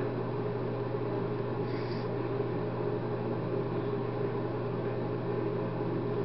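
Steady low hum with room noise, and a faint sniff about two seconds in.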